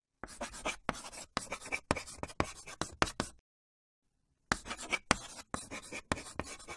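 Pen scratching in quick drawing and writing strokes, in two runs separated by a pause of about a second.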